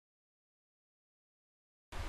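Dead digital silence, with a low hum and hiss of recording noise coming in right at the very end.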